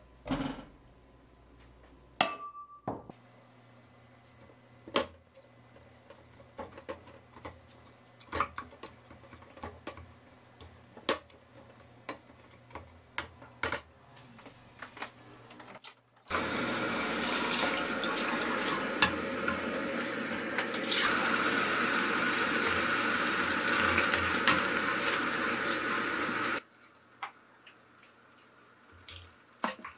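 Utensils knocking and clicking against a pot as steamed kabocha squash is tipped in and mashed, then a steady rush of water poured into the pot for about ten seconds, stopping suddenly, with a few faint knocks near the end.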